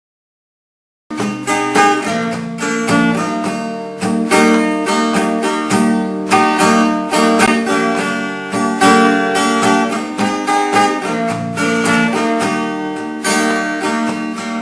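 Acoustic guitar playing a country song's instrumental intro, a steady run of picked and strummed chords that starts about a second in after silence.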